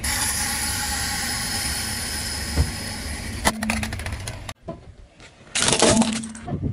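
A car rolling slowly on concrete with its engine running, a few sharp clicks near the end. After a cut, a loud crunching and crackling about five and a half seconds in as a tyre crushes small plastic objects.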